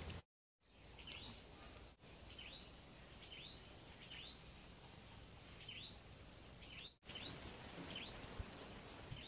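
A bird calling over and over outdoors: short chirps that rise and fall in pitch, about one a second, over faint background hiss.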